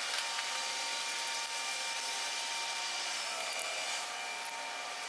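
Steady hiss of shop background noise with faint steady hum tones. A few faint light ticks come from a hex wrench turning oil galley plugs into the engine block.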